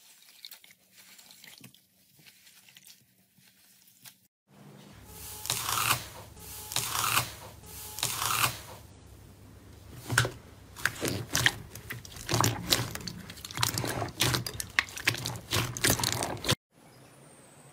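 Hands squeezing and pressing slime: faint wet squishing at first, then from about four seconds in, a run of louder crackling squishes, repeated every second or so and growing denser. The sound drops off abruptly near the end.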